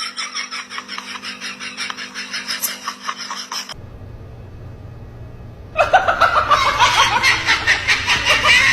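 A person laughing in quick rhythmic bursts. It cuts off suddenly, a couple of seconds of low background noise follow, then loud high-pitched laughter.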